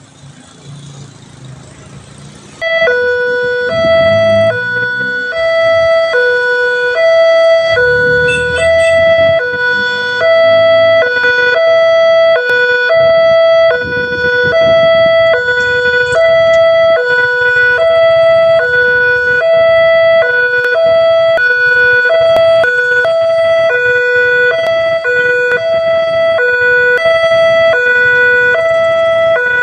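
Railway level-crossing warning siren starts abruptly about three seconds in and sounds a loud two-tone hi-lo alarm. It alternates between a lower and a higher pitch, one cycle a little over a second, meaning a train is approaching and the crossing is closing. Low rumbles of passing vehicles run underneath.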